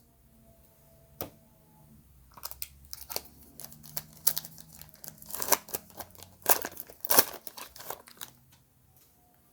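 A 2020 Topps Heritage Minor League hobby pack being torn open, its wrapper crinkling and tearing in a crackly run of rustles from about two seconds in until near the end. There is a single click about a second in.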